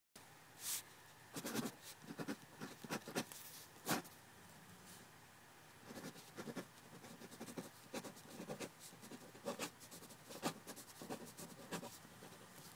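A pen scratching across paper in short, irregular strokes, as in handwriting, with a brief lull partway through.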